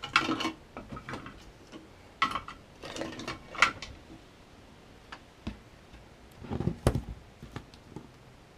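Scattered clicks and clinks of hand tools and small metal parts being handled, coming in short clusters, with a heavier clatter about seven seconds in.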